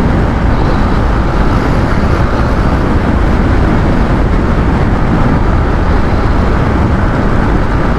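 Steady wind rush and road noise from a moving Yamaha R15 motorcycle, with its engine running underneath.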